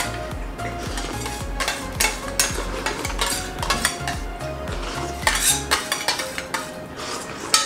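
Steel spoons clinking and scraping against stainless steel plates as two people eat quickly, in many short sharp clicks. Background music with a low beat runs underneath and stops about six seconds in.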